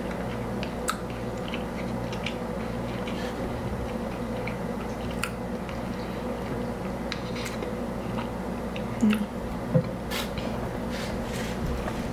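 A person chewing fried fast food close to the microphone, with small wet mouth clicks, over a steady low hum. Two louder knocks come about three-quarters of the way through.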